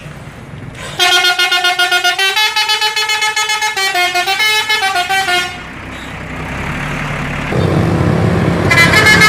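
A coach bus's multi-tone musical horn (a 'telolet' horn) playing a rapidly pulsing tune of stepping notes for about four seconds. Then a bus engine runs and grows louder, and the musical horn starts up again near the end.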